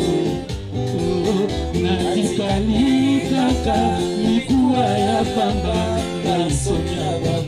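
Music with a singing voice, guitar and a steady, repeating bass line.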